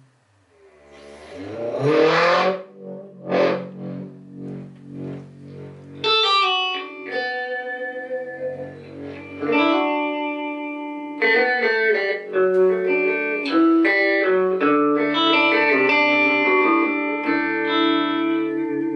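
Electric guitar played through the repaired Electra EP-401 digital delay. In the first couple of seconds the delay's knobs are turned and its sound sweeps up in pitch with a warbling rise. From about six seconds, guitar chords and single notes ring through the effect, fuller from about eleven seconds.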